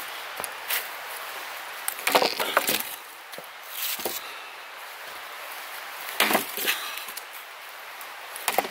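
Firewood being chopped and split: a cluster of sharp cracks and splintering wood about every two seconds, loudest a couple of seconds in.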